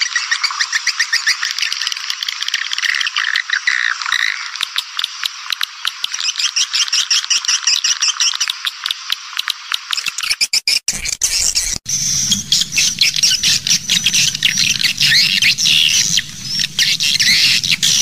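Swiftlets twittering in a dense, rapid chatter: a swiftlet lure recording of the kind played to draw swiftlets to a nest house. About eleven seconds in, the sound breaks off briefly, then the twittering resumes higher in pitch over a low steady hum.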